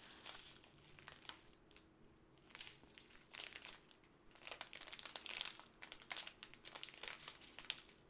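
Small clear plastic bags of round resin diamond-painting drills crinkling as they are handled and turned over, in soft irregular rustles with louder stretches about three and a half and five seconds in.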